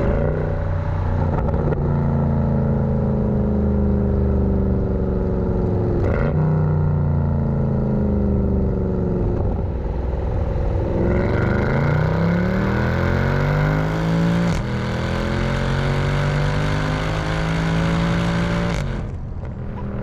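Car engine heard from inside the cabin while driving, dropping in pitch as the car slows and then rising again as it accelerates, with a break in the rise like a gear change. Steady road and tyre rumble runs underneath.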